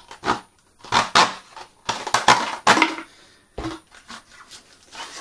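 A rotary engraver kit's parts being handled: a string of short knocks and clatters, with some rustling in the middle. There is no steady motor sound, so the engraver is not running.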